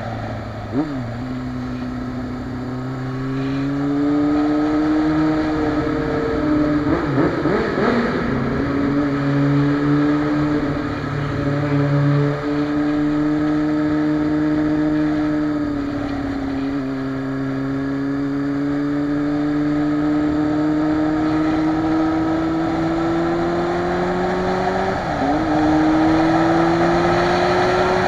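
Motorcycle engine running at a steady cruise, its pitch drifting slowly up and down, with brief dips in pitch about a second in and again near the end. Road and wind noise rushes steadily underneath.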